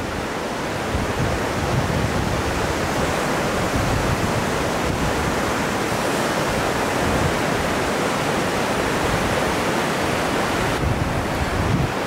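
Steady rushing of flowing water from a mountain stream, an even hiss that thins out slightly in the upper range near the end.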